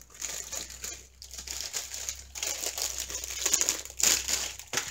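Clear plastic packaging bag crinkling as it is handled and opened, an irregular crackle that grows loudest near the end.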